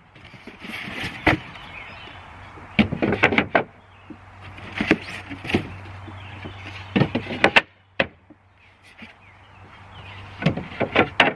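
Parts of a raised bed planter being fitted together by hand: clusters of knocks and clunks, with scraping as pieces slide into place.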